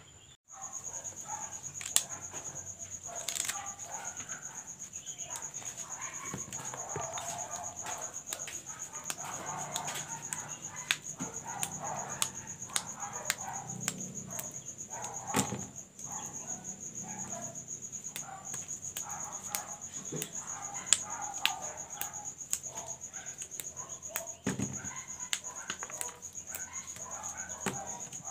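Crickets chirping steadily in a continuous high trill, over irregular crisp snaps as yardlong beans are broken into pieces by hand.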